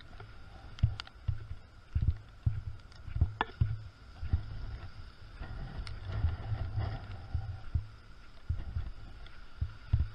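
Category 1 hurricane wind buffeting the microphone: a low rumble that swells and fades with the gusts, broken by irregular sharp thumps about once or twice a second.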